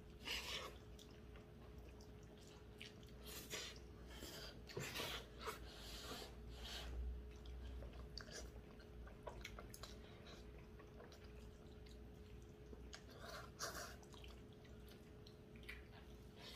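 People slurping glass noodles and chewing: irregular soft slurps and wet mouth smacks, faint, over a steady low hum.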